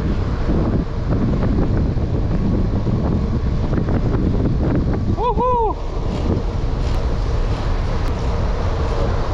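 Wind buffeting an action camera's microphone while cycling, a steady loud rumble. About five seconds in comes a brief pitched squeal that rises and falls.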